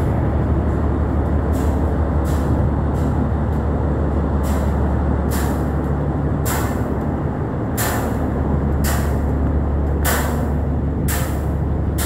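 Steady low rumble of a cargo ship under way, with short hissing bursts about once a second.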